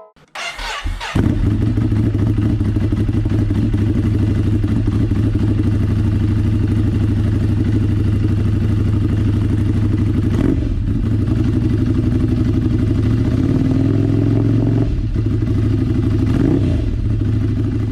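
Ducati Scrambler 800 Desert Sled's air-cooled L-twin engine breathing through an Arrow Pro-Race titanium slip-on silencer, starting up about a second in and settling into a steady, pulsing idle. It is blipped briefly twice and held at higher revs for a second or so in between.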